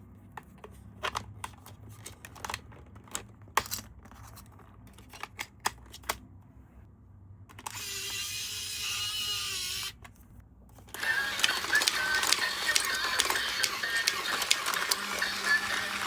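Sharp plastic clicks and taps of a toy being handled, then from about eleven seconds in a small battery-powered toy running, a dense rapid rattle over a steady whine.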